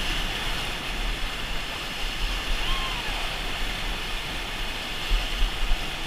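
Whitewater rapid: river water rushing and crashing as it breaks over a raft dropping through a hole, a steady loud roar with a few low thumps near the end.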